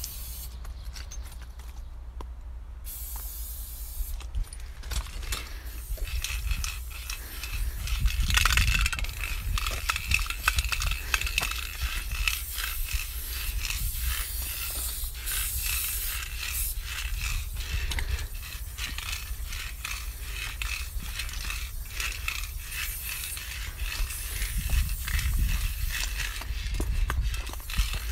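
Aerosol spray-paint can hissing in short bursts against a rough concrete wall, with many sharp clicks and rattles in between, under a constant low rumble.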